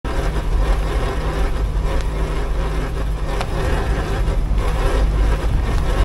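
Rear wheel and tyre of a BMW F15 X5 rolling slowly over asphalt, heard close beside the wheel: steady road noise under a heavy low rumble. This is the rear-wheel sound in which the owner is hunting a soft grinding that several brake and hub repairs have not cured.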